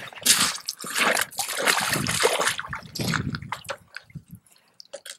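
Footsteps of a person in rubber waders wading into a shallow, stony creek, the water splashing and sloshing with each step. After about three seconds the splashing stops, leaving only a few faint drips and small clicks.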